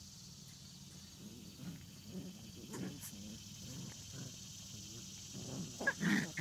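Old Time Scotch Collie puppies making short growling play noises as they wrestle. The calls come scattered, then grow louder and more frequent near the end.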